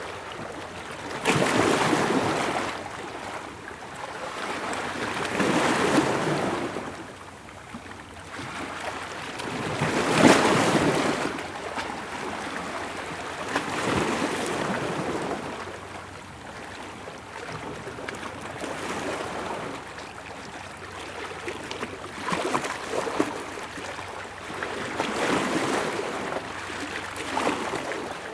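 Ocean waves breaking on a beach and washing up the shore, a steady hiss that swells every few seconds with each wave, the loudest a little past ten seconds in.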